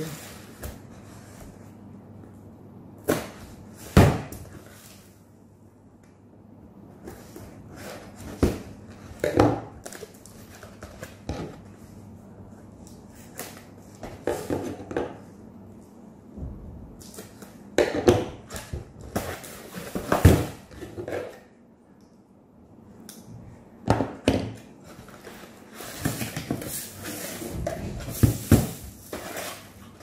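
Cardboard box being cut open and handled: a blade scraping along the taped cardboard, with scattered knocks and rustling of the flaps.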